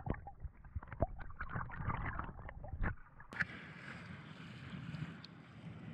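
Swimming underwater, heard through a camera in the water: muffled clicks and knocks of moving water. A little over three seconds in, the camera breaks the surface and the sound opens suddenly into a steady hiss of water and air at the surface.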